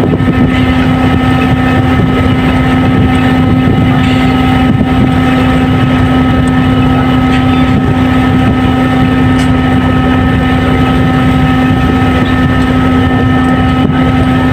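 Fishing vessel's engine running at a steady speed: a loud, unchanging drone with a constant hum over it.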